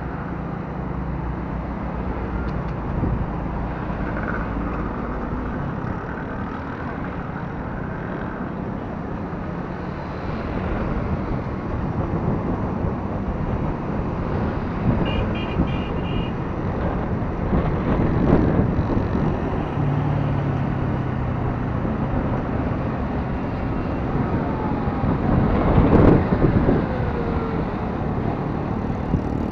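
Motorcycle engine running and road noise while riding in busy city traffic, with other motorbikes and cars passing. A short run of high beeps comes about halfway, and a sharp knock, the loudest moment, near the end.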